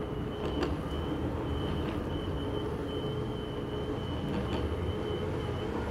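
Electric skateboard cruising at a steady speed: the dual belt-drive motors, run in FOC mode, give a steady high whine over the low rumble of 83 mm Abec 11 Flywheels rolling on smooth concrete. It is relatively quiet for a belt-driven board.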